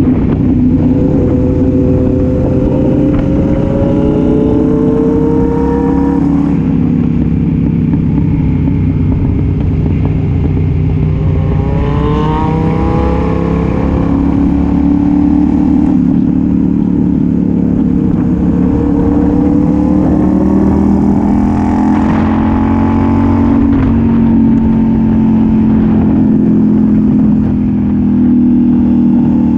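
Sport motorcycle with an aftermarket exhaust running at road speed through curves. Its engine pitch climbs over the first several seconds, drops suddenly, then rises and falls again a few times as the throttle is rolled on and off, over a steady rush of wind.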